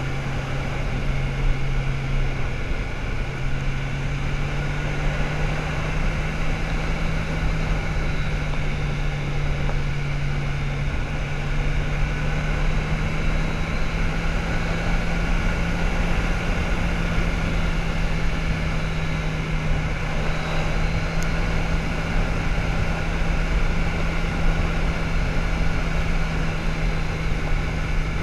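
Motorcycle engine running steadily at road speed, with wind rushing past the rider's position. The engine note steps up slightly in pitch a few seconds in and again about eleven seconds in.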